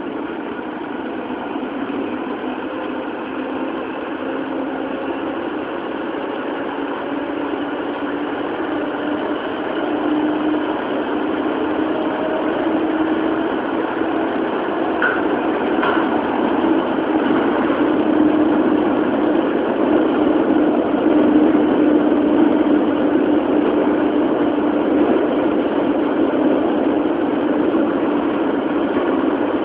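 Toei 10-000 series subway train, with GTO-thyristor chopper control and DC series traction motors, running through a tunnel as heard from inside the car. A steady motor and running hum rises slightly in pitch and grows louder over the first half, then holds.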